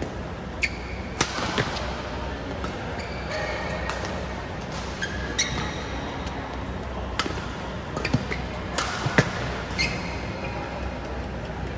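Badminton rally: rackets striking the shuttlecock in an exchange of sharp smacks, about a dozen at irregular intervals, with short squeaks between hits.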